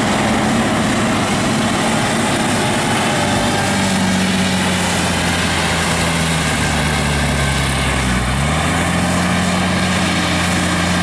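Diesel engine of a Bell 4206D wheel tractor running hard while pulling a loading scraper; its pitch sags as it pulls down under the load about two-thirds of the way through, then picks back up.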